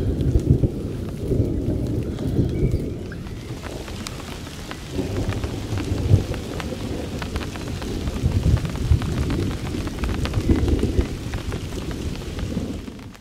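Rain falling on a lake, with many small drop ticks, under a low rumble of thunder that eases a few seconds in and swells again.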